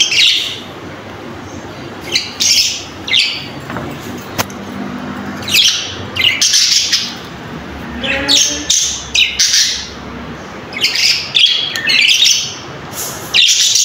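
Caged pet budgerigars chirping and squawking in many short bursts of high calls, with a lower, rising call about eight seconds in.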